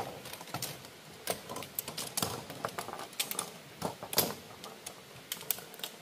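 Irregular clicks and light knocks, a dozen or more in quick uneven succession, with a louder knock about four seconds in.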